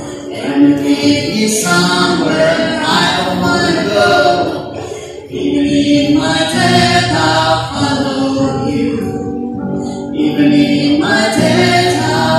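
A man and a woman singing a Christian worship song together, with the man playing an acoustic guitar. There is a short break between sung lines about five seconds in.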